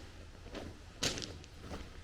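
Footsteps walking at an even pace, about three steps, with the loudest step about a second in.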